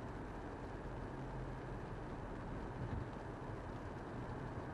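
Steady road noise and engine rumble of a car driving, an even low rumble without change.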